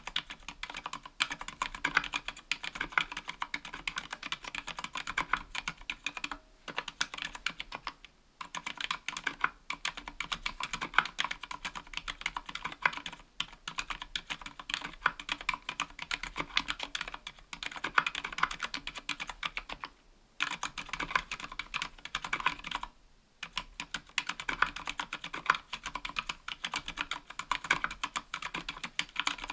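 Continuous fast typing on a 60% mechanical keyboard with an aluminium case and plate, Gateron Silent Black Ink linear switches and GMK doubleshot keycaps: soft, damped keystrokes, with a few brief pauses.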